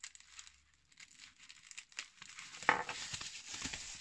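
Plastic bubble wrap crinkling and rustling as it is pulled off a wrapped whetstone by hand, getting louder about halfway through with a sharp crackle.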